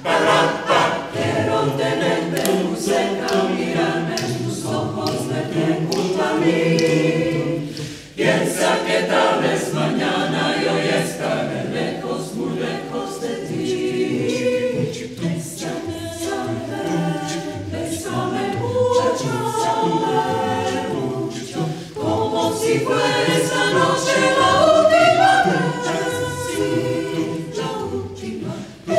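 Mixed choir of women's and men's voices singing a cappella, with brief breaks between phrases about 8 and 22 seconds in.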